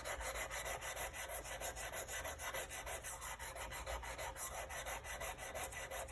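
Steel block plane blade in a sharpening jig rubbed rapidly back and forth on 150-grit sandpaper, a continuous scratchy rasp in an even, fast rhythm of strokes. This is the grinding of the 30-degree primary bevel, worked practically back to the cutting edge.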